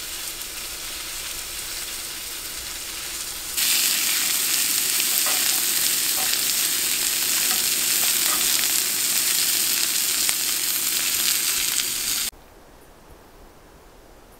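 Sausages and sliced onions sizzling in frying pans on a gas camp stove, a steady hiss that gets suddenly louder and closer about a quarter of the way in, with a few faint clicks of tongs turning the sausages. The sizzle cuts off sharply near the end, leaving quiet outdoor ambience.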